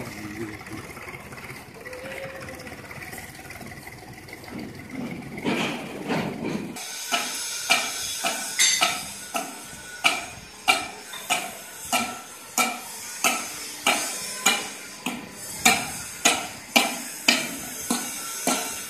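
Low workshop background, then from about seven seconds in a steady run of sharp metal-on-metal strikes, a little under two a second, each trailing off briefly.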